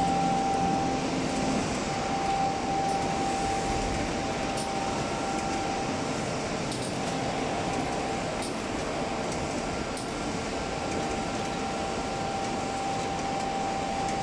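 CNC knife cutting machine with its automatic fabric feeder running: a steady, fan-like rush of air with a steady high whine, and a few faint ticks.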